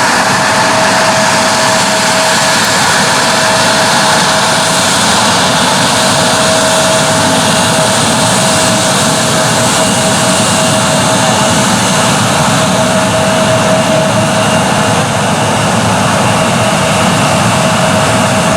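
Jet airliner engines running steadily: a loud, even rush of noise with a constant whine.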